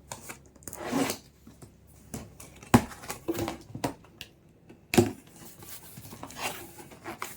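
Packaging being handled during an unboxing: rustling and crinkling of wrapping, with two sharp knocks about three and five seconds in.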